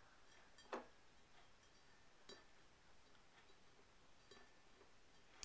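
Fingernails tapping lightly on a glass beer bottle: a few sparse, faint taps, the clearest one under a second in.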